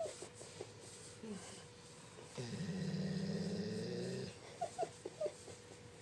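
Labrador retriever snoring while being petted: one long, rattling snore of about two seconds starting about two and a half seconds in, with a shorter one near the first second and a few small clicks afterward.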